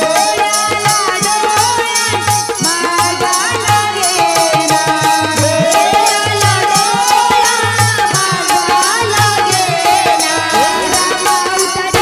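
A woman singing a melodic, ornamented vocal line into a microphone over amplified accompaniment with a steady percussion beat: quick regular high ticks and a low drum at intervals.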